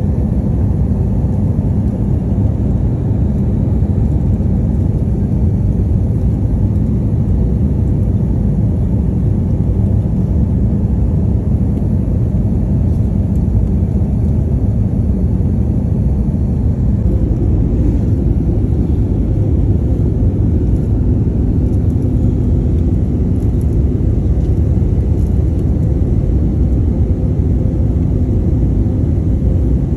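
Cabin noise of an airliner in flight: the steady low rumble of engines and airflow, with a faint steady hum in it.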